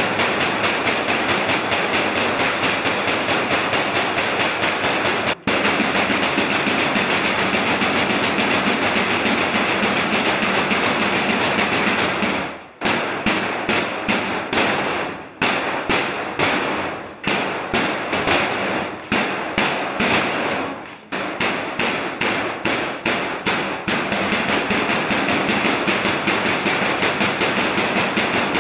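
Steel bars of a holding-cell cage being banged and rattled over and over, a fast run of metallic bangs several a second. Partway through, the run thins out into separate bangs for several seconds, then picks up again.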